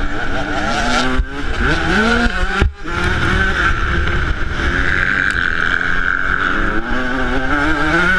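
2008 Yamaha YZ125 two-stroke single-cylinder motocross engine, heard from on board while racing, its pitch climbing and dropping as the throttle is worked, with a brief cut in the sound about two and a half seconds in.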